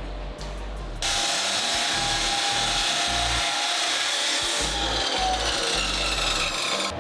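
Power tool grinding metal, likely chamfering the edges of steel motor-mount brackets. It starts abruptly about a second in and runs steadily until just before the end, over background music.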